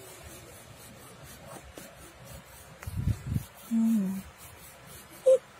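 Soft handling noise with a couple of low thumps about halfway through, then a short hummed voice sound that steps down in pitch, and a brief higher voice sound near the end.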